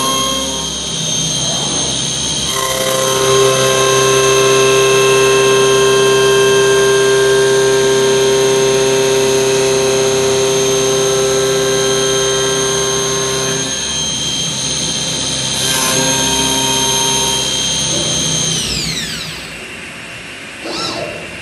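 Schnitzer CNC wood lathe running: a steady, loud machine whine made of several tones over a rough hiss. Near the end the whine glides steeply down in pitch and the sound drops off as the machine slows.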